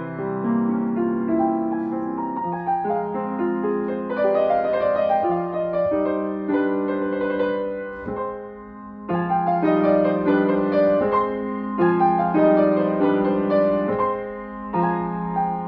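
Steinway & Sons grand piano played by hand: a melody over chords, with a brief lull about eight seconds in before the playing comes back louder.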